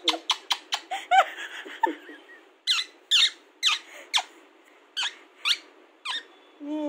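Pet parakeet squeaking: a rapid run of short, sharp squeaks, then about eight separate rising squeaks roughly half a second apart, and a lower falling call near the end.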